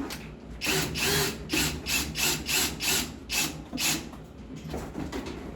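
Power drill driving a screw in a series of short bursts, about eight quick pulses in a row before it stops.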